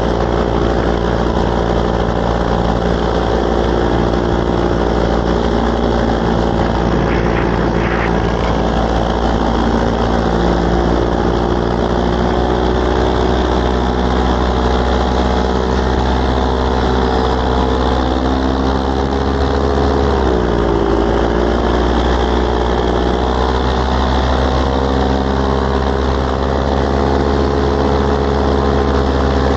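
ScoutZero electric paramotor's motor and propeller running steadily in flight, a continuous hum with several pitches over a rushing hiss; about twenty seconds in the pitch drops briefly and comes back up.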